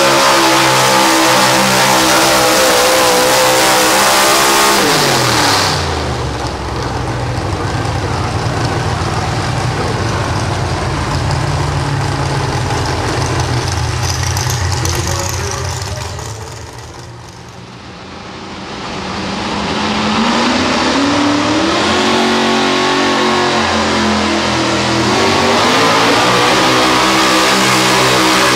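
Pulling-truck engine at high revs under load, its pitch falling about five seconds in as the truck lets off. After a lower, quieter stretch, a second pulling truck's engine revs up about twenty seconds in and holds high revs under load.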